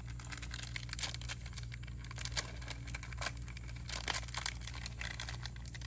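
A wafer-roll snack wrapper being torn open and crinkled by hand: a run of short, sharp crackles and tearing sounds over a steady low hum.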